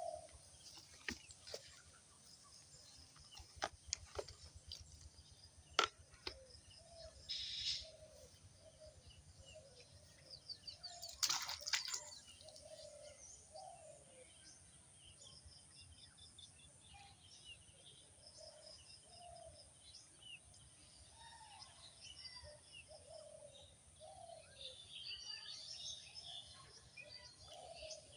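Birds chirping and calling: high quick trills and chirps over repeated short lower calls. A few sharp clicks come in the first seconds, and a louder rustling burst comes about eleven seconds in.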